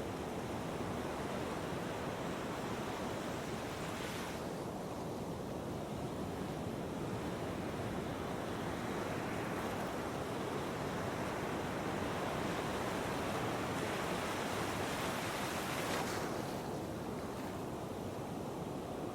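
Heavy ocean surf: a continuous rush of breaking waves that builds in the middle and eases off near the end.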